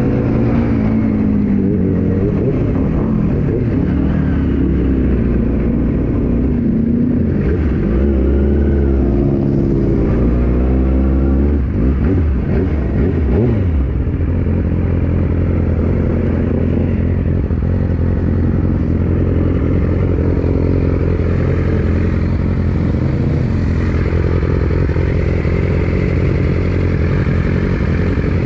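Yamaha R6 inline-four sportbike engine revving up and down through gear and throttle changes for about the first half, then settling into a steady low-rev note from about halfway through.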